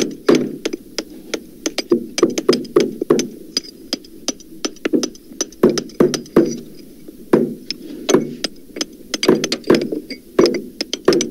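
Hammer blows knocking in an uneven rhythm, a few a second with brief gaps, their pitch lowered by editing so that each blow sounds deeper than a natural hammer.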